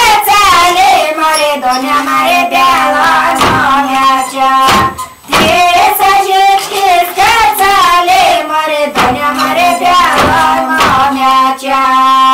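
Women's voices singing a Pomak folk song unaccompanied, a wavering high melody over a low held note, with a few sharp wooden knocks from a handloom's beater.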